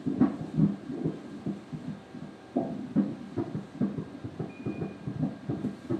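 Fetal heartbeat played through the ultrasound machine's Doppler speaker: a fast, even pulse at about two and a half beats a second, roughly 150 beats a minute.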